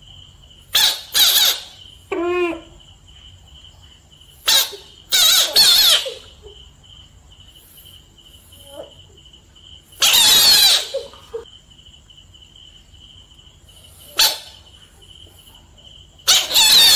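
Frogs screaming in defence as a hand reaches toward them: a string of loud, shrill screeches at irregular intervals, about eight in all, one a lower held cry about two seconds in and a longer one about ten seconds in. A faint steady high whine runs underneath.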